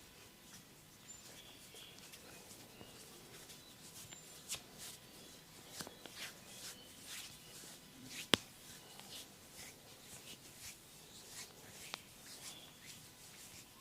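Hands working over skin in a massage: soft rubbing and scattered light taps, with one sharp crack about eight seconds in.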